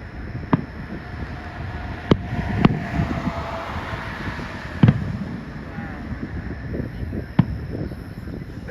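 Fireworks going off: five sharp bangs at uneven intervals a second or two apart, over a steady low rumble with wind on the microphone.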